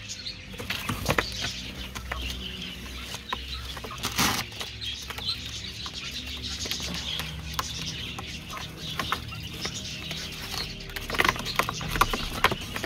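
Young quail chirping and clucking softly in a cardboard box, with a steady chatter of other aviary birds behind them. Sharp scuffs and taps on the cardboard as a hand reaches in among them are loudest about four seconds in and near the end.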